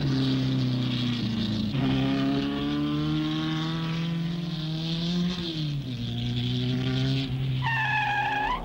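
Racing car engine at speed, its pitch climbing slowly and then dropping about five and a half seconds in, with a brief higher-pitched squeal near the end.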